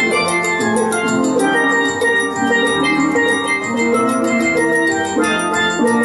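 Steel drum trio playing an upbeat island tune: several steel pans ringing out quick melodic and chordal notes over a steady fast beat of drums or percussion.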